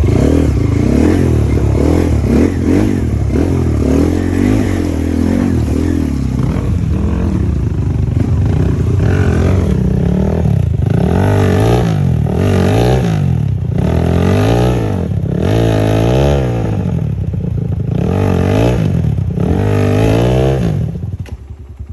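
Motorcycle engine running hard, its pitch wavering at first, then revved up and down about once a second through the second half, and dropping away just before the end.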